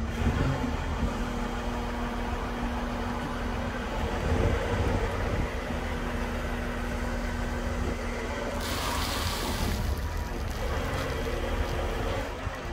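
2012 Caterpillar 930K wheel loader's diesel engine running while the bucket is curled back and lifted, with a steady hum that stops about eight and a half seconds in. A short hiss follows and lasts about a second.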